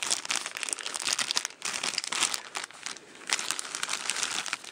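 Thin clear plastic bag crinkling and rustling as it is opened and handled, with brief lulls about a second and a half in and around three seconds in.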